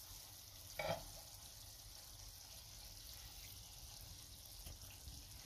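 Faint steady sizzle of shrimp paste and pork belly simmering in a pot, with one short sound about a second in.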